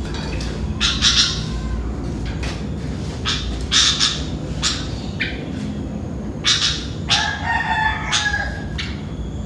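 Sooty-headed bulbul (kutilang) giving short, bright chirping calls again and again, with a rooster crowing once about seven seconds in.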